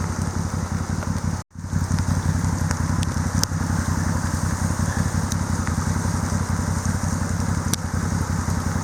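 An engine idling steadily with an even, pulsing low hum, cutting out briefly about one and a half seconds in.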